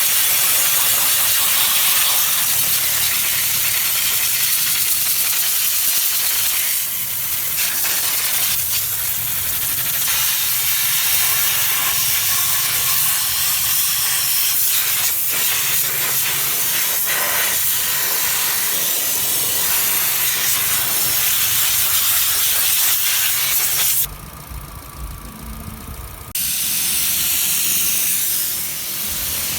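High-pressure cleaning spray hissing steadily, with a break of about two seconds near the end while a low hum carries on underneath.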